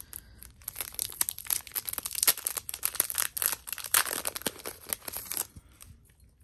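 A stack of photocards being unwrapped by hand, its thin plastic wrapping crinkling and tearing in a dense run of crackles that dies away about five and a half seconds in.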